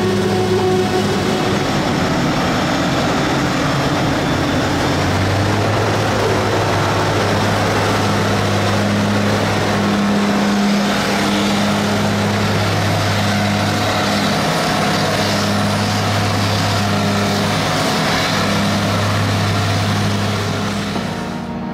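Claas Jaguar 980 forage harvester at work chopping corn, its twin six-cylinder Mercedes-Benz OM 460 LA engines running under load. A steady deep engine drone sits under a broad rushing noise.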